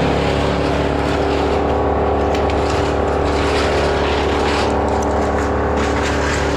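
Stihl 201 two-stroke top-handle chainsaw running with a steady, even engine note.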